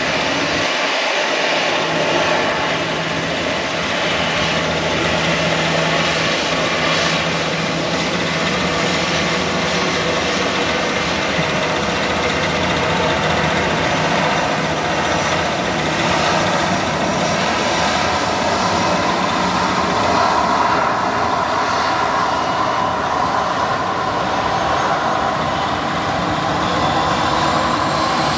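Jet airliner engines running close by: a steady loud rush of noise with high whining tones held throughout.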